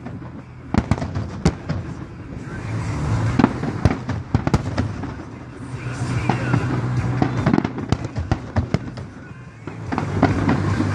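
Aerial fireworks bursting overhead: a quick series of sharp bangs, several a second at times, over a steady low hum that comes and goes.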